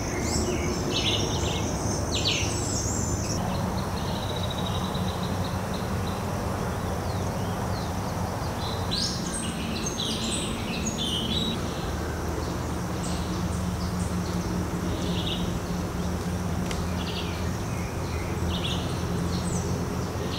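Birds chirping and calling in short flurries, busiest near the start and again about halfway through, over a steady low rumble and a constant thin high tone.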